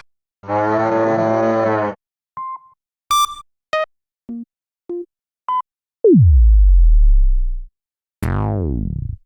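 A string of separate synthesized sound effects with short gaps between them: a buzzy held tone, several short beeps at different pitches, a deep tone that drops in pitch and holds as a low rumble, and then a quick falling-pitch sweep near the end.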